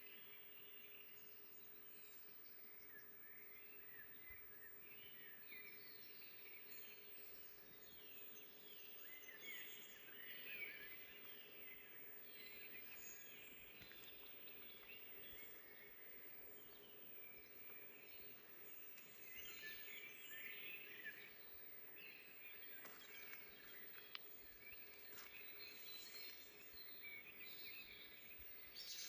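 Faint forest birdsong: several songbirds chirping and trilling throughout, overlapping, over a faint steady hum.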